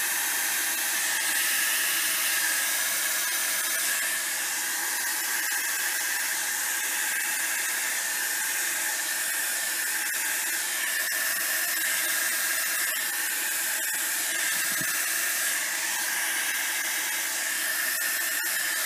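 Hand-held blow dryer running steadily: an even rushing of air with a faint steady high whine.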